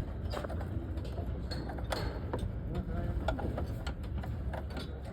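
Scattered light clicks and taps at an uneven pace, about one to two a second, from hand work on a diesel truck's fuel system while it is bled of air, over a steady low hum.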